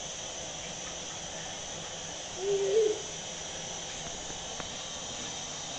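Steady hiss of a gas-cylinder stove burner heating a karahi of oil. About two and a half seconds in, one short, wavering hoot sounds over it.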